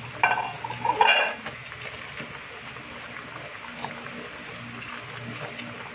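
Two short metallic clinks of a stainless steel soup pot in the first second and a half as napa cabbage is pressed down into it, then a few faint taps and handling sounds over a steady low hum.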